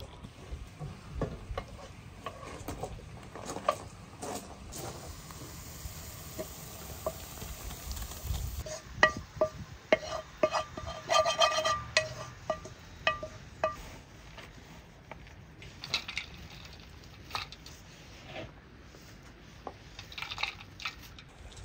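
Metal frying pan and spoon scraping and knocking against a metal mixing bowl while fried onions are tipped onto mashed potato: a quick run of sharp, ringing clinks about halfway through. Before that, a dog chewing and nosing its food in a steel bowl; near the end, softer knocks as handfuls of chopped greens are dropped into the bowl.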